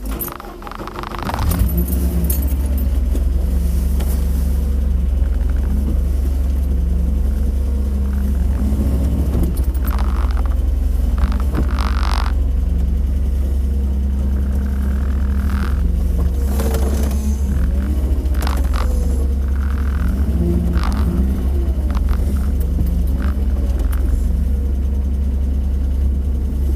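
GAZ Volga's ZMZ-406 four-cylinder engine running steadily, on a freshly flashed Mikas 7.1 engine control unit, heard from inside the cabin as the car is driven slowly. A few short knocks and clicks come over the steady hum.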